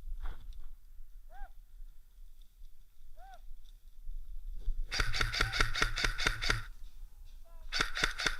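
Airsoft electric rifle firing rapid full-auto bursts over the whine of its motor: a burst of about a second and a half some five seconds in, and another starting near the end. Two short whistle-like chirps come earlier.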